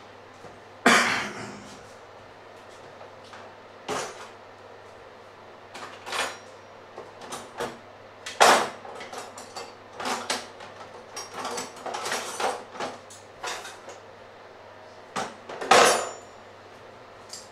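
Kitchen clatter of dishes and utensils being handled: a string of irregular knocks and clinks, with the loudest bangs about a second in and near the end.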